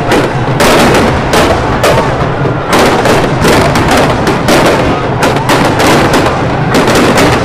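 Firecrackers packed inside a burning Ravana effigy going off in a loud, continuous barrage of sharp bangs, several a second.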